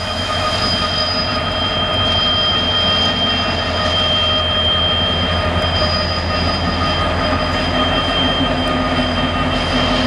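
Passenger train rolling slowly around a tight curve, its steel wheels squealing steadily against the rails over a low rumble. A lower tone joins about six seconds in.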